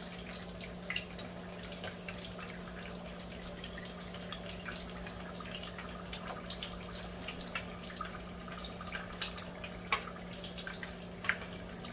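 Hot oil sizzling and crackling around wonton-wrapped tacos frying in a pot, with a few sharp clicks of metal tongs near the end as the tacos are turned. A steady low hum runs underneath.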